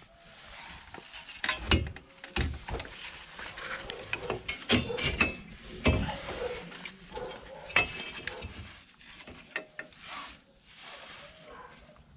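Metal clinks and knocks of steel drum brake hardware and hand tools being handled at a van's rear brake backing plate. There are several sharp hits with brief metallic ringing, the loudest about a second and a half in and again around six seconds, easing off near the end.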